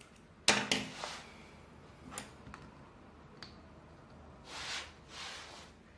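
Handling sounds from work on a string-art board of small nails and thread: a few sharp taps and clicks about half a second to a second in, a lighter tick later, then two soft rustling swells near the end.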